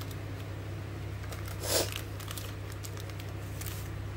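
Paper and plastic sachets of tea, coffee, sugar and milk powder rustling and crinkling as a hand sorts through them in a tray, with a brief louder rustle about halfway through. A steady low hum runs underneath.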